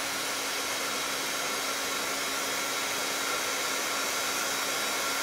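Pink embossing heat tool blowing hot air at a steady pitch, a constant whir with a low motor hum, drying freshly stamped white craft ink on cardstock so it won't smear.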